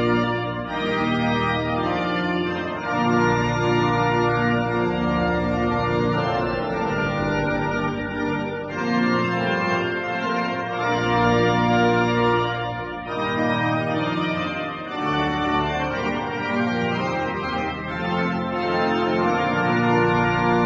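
Silbermann pipe organ playing sustained full chords over a steady bass, the harmony changing every second or two.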